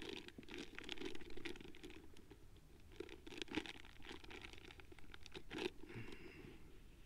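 Close rustling and scratching from clothing and first-aid material being handled near the microphone. It comes in irregular bursts of small clicks and crinkles, with a lull in the middle.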